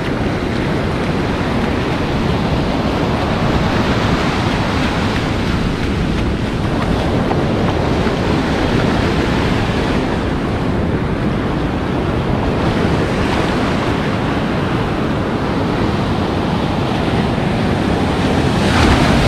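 Ocean surf washing in the shallows, a steady rush of water that swells louder near the end as a wave breaks close by.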